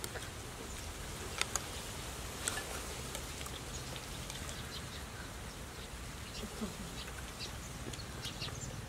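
Quiet outdoor ambience: a steady low hum with faint high chirps from insects and birds, and a few light clicks.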